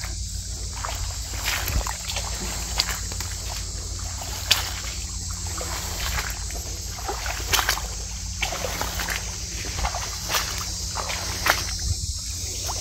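Footsteps sloshing through shallow standing water and wet grass, with irregular splashes and swishes over a steady background hiss.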